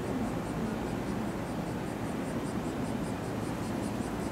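A freight train rolling through a station at speed: a steady, even noise of wagon wheels on the rails.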